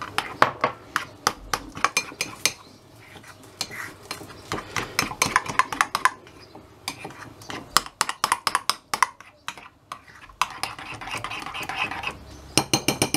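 Metal spoon stirring a thick seasoning paste in a ceramic bowl, clinking against the sides in runs of quick taps, with a stretch of steadier scraping about ten seconds in.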